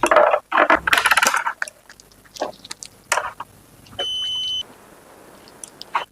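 Small metal parts and tools clinking, clattering and knocking on a workbench during a mixer grinder repair, busiest over the first two seconds. About four seconds in comes a single short, high electronic beep.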